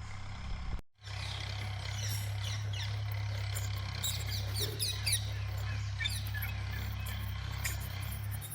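Small birds chirping in quick, short, falling notes, many in a row, over a steady low hum. The sound starts after a brief break about a second in.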